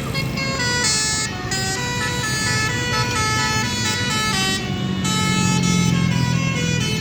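Basuri multi-tone musical air horn playing a melody of held notes that step up and down in pitch, over the low rumble of a running vehicle engine that grows stronger in the second half.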